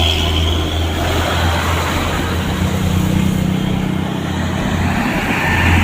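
Highway traffic: a steady low engine hum with vehicles passing on the road, a heavier engine note building from about two seconds in. No horn sounds.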